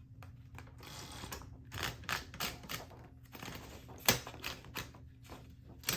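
1959 Smith Corona Sterling manual typewriter's mechanism clicking and clacking: a run of irregular sharp clicks, with two loud clacks about four seconds in and near the end.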